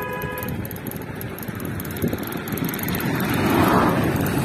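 Wind rushing over the microphone of a camera on a moving bicycle, with tyre noise from a brick-paved road, swelling louder about three and a half seconds in.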